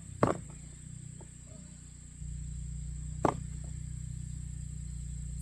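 Two sharp strikes about three seconds apart, typical of a digging tool jabbed into the soil of a potato patch, over a steady high trilling of insects. A low engine hum grows louder about two seconds in.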